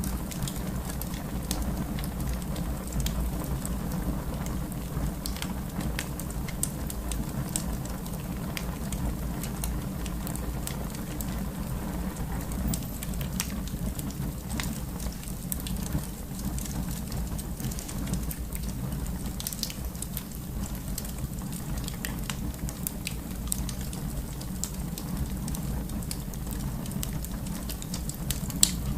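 Fire crackling in a fireplace: many small sharp pops scattered over a steady low rumble, with one louder pop near the end.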